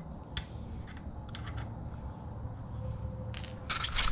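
Faint small metallic clicks of a valve-core tool screwing the core back into a minibike tire's valve stem, over a low steady hum, followed by short bursts of hiss near the end.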